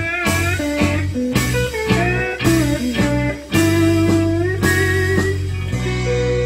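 Electric guitar played with a glass slide in a blues instrumental, the melody notes gliding up and down between pitches. Near the end a single note is held and rings on.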